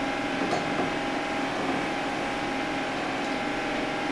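Steady hum of a laminar flow cabinet's blower fan, with a few constant tones in it. A couple of faint clicks come about half a second in.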